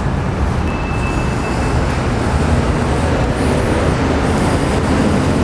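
Steady background noise with a low hum, unbroken throughout.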